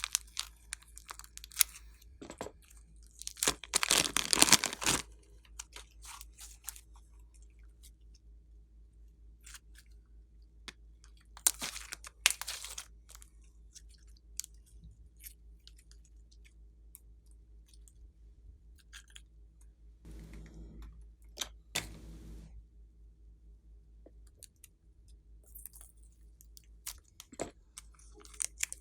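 Glossy slime being squished and worked by hand, giving crackling, popping clicks in bursts of a second or two, with quieter gaps between.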